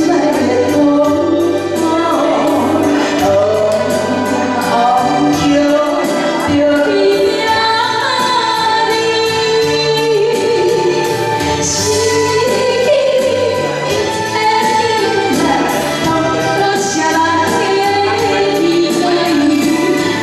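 A woman singing a ballad into a microphone, amplified over PA speakers, with instrumental backing that keeps a steady beat.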